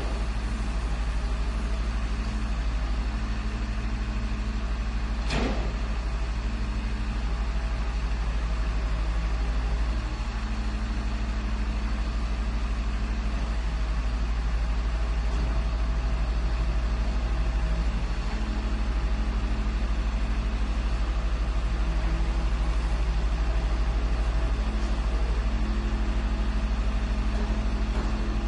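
Garbage truck engine running at a steady idle, a constant low hum, with one sharp click about five seconds in.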